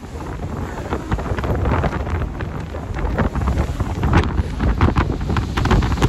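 Strong wind buffeting the phone's microphone on a ship's open deck: a loud, irregular rumble that swells in gusts.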